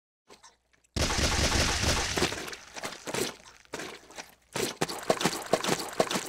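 A sudden loud crash of breaking about a second in, fading out over the next second or so, followed by scattered hits and then a fast irregular run of sharp knocks.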